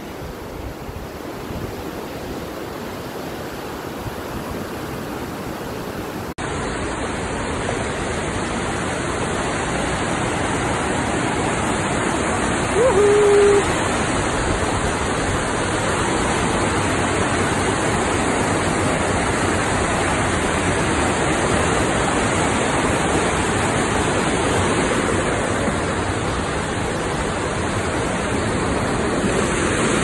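White-water rapids of a fast-flowing river rushing over rocks: a steady, dense roar of water that jumps louder at a sudden cut about six seconds in. About halfway through there is a brief single-pitched sound from a person's voice.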